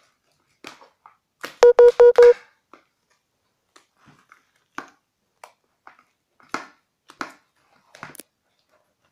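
A quick run of four loud electronic beeps, all on one pitch, about two seconds in. Scattered short scrapes and clicks follow: a utensil stirring thick fluffy slime in a bowl.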